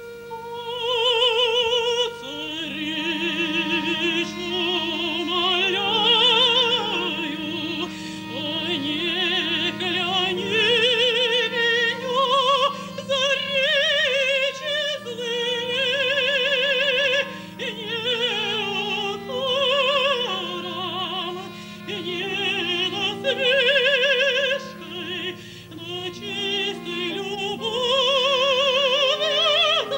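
Female operatic singing with a wide vibrato, a sung melody over sustained instrumental accompaniment.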